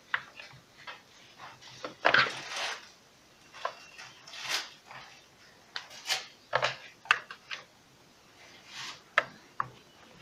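Tools and metal parts being handled while the screws are taken out of a submersible water pump's motor casing: scattered clicks, clinks and short scrapes at an uneven pace, with the longest scrape about two seconds in.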